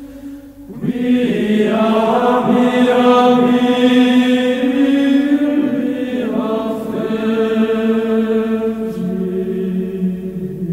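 Background music of chanting voices holding long notes, several pitches sounding at once. It swells in under a second in and moves to new notes about six and nine seconds in.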